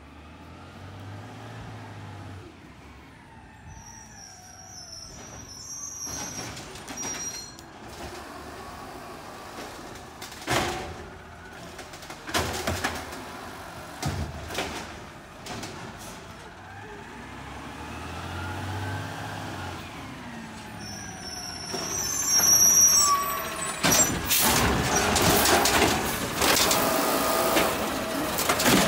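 Automated side-loader garbage truck pulling up: its diesel engine rises and falls in pitch, air brakes hiss and squeal twice, and there are several sharp knocks along the way. Near the end the engine runs loud and hard as the hydraulic arm lifts a trash cart overhead to tip it into the hopper.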